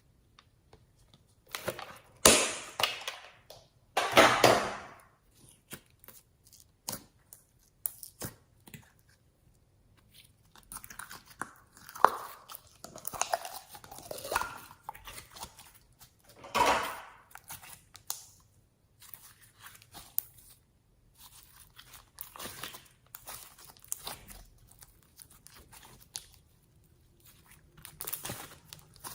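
Close-up slime handling: an irregular run of short crinkling, tearing and crunchy squishing noises as slime and its packaging are worked by hand. The loudest come about two and four seconds in.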